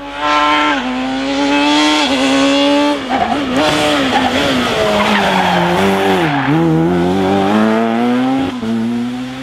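A rally car on a special stage, its engine revving hard and dropping in pitch with each gear change, and its tyres skidding about halfway through. It comes on loud right away and fades near the end.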